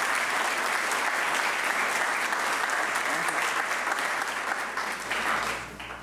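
Audience applauding steadily, dying away shortly before the end.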